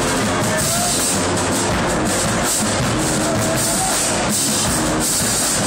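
A marching band playing, with drums and brass, loud and unbroken.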